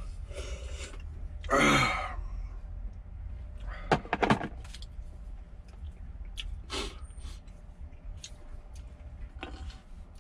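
A man drinks the last of the ramen broth from a metal pot, then lets out a loud exhale that falls in pitch. A few sharp clicks follow as the pot and chopsticks are handled and set down, over a low steady hum.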